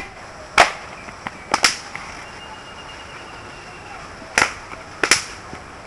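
Sharp slaps of bare hands striking the body during an empty-hand silambam form: a handful of loud single cracks and quick pairs at irregular intervals.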